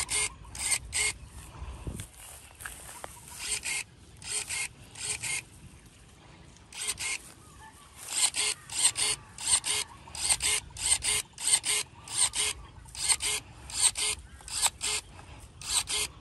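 Cordless 21 V electric pruning shears cutting twigs: each cut is a short motor whirr as the blade closes and reopens, repeated in quick succession with a few short pauses.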